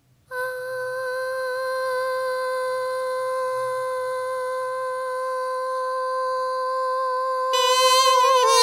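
Music begins with a single note held steady for about seven seconds. About 7.5 s in, a small handheld wind instrument takes over with fuller notes that waver and bend in pitch.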